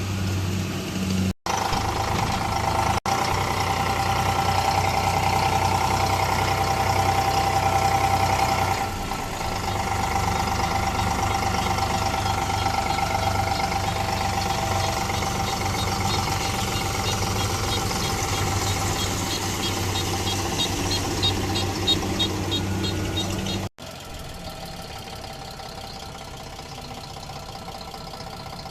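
Engine of a rice harvesting machine running steadily under work, with a mechanical knocking rattle. The sound cuts out briefly twice, about a second in and near the end, and is quieter after the second break.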